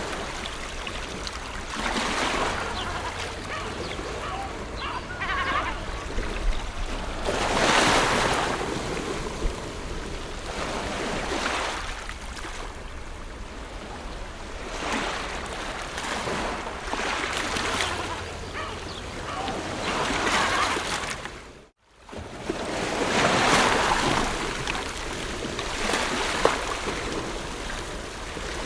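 Ocean waves breaking and washing on a shore, swelling and falling back every few seconds. The sound cuts out completely for a split second a little over two thirds of the way through, then the surf resumes.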